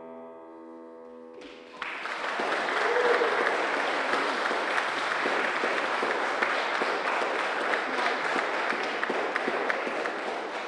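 The last chord of a song on keyboard rings out and fades, then an audience starts applauding about one and a half seconds in and keeps clapping steadily.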